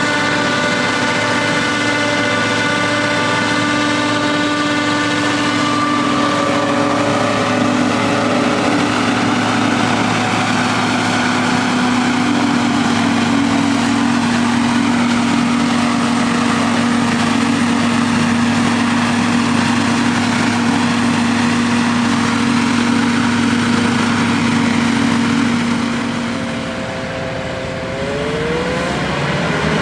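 Diesel engines of silage harvesting machinery running steadily under load. A brief dip about three-quarters through, then a rising pitch near the end as an engine revs up.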